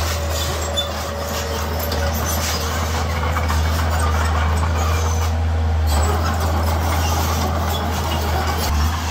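Heavy diesel earthmoving machinery running steadily, a deep continuous engine drone with a noisy mechanical wash over it.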